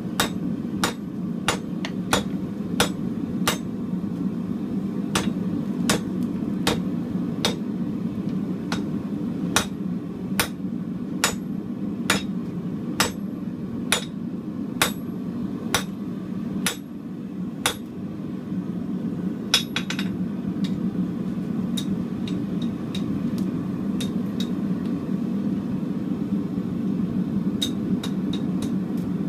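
Hand hammer striking a glowing billet of chainsaw chain on a steel anvil to set a forge weld, with steady blows about one every 0.7 seconds. Partway through the blows stop for a moment, then come one heavy blow and a few lighter taps. A steady low hum runs underneath.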